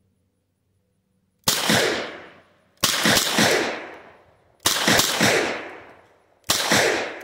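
Four shots from a Smith & Wesson M1917 .45 ACP revolver, the first about a second and a half in, then spaced roughly one and a half to two seconds apart, each dying away over about a second.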